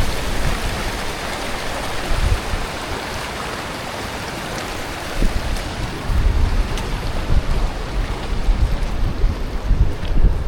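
Steady rushing outdoor noise with wind buffeting the microphone, the low gusts heavier from about six seconds in.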